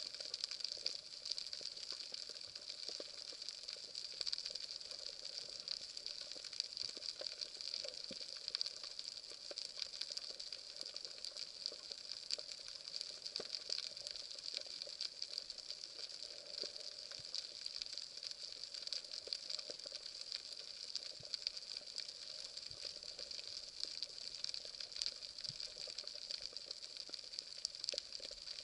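Underwater ambience over a rocky reef, heard through an action camera's waterproof housing: a steady crackling hiss made of many small, irregular clicks.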